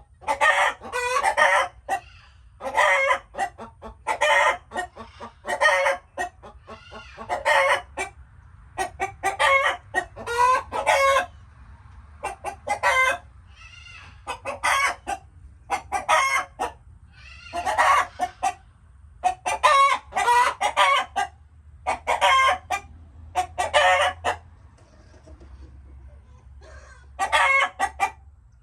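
Chickens clucking in short repeated bursts of calls, one to two seconds apart, with a few brief pauses.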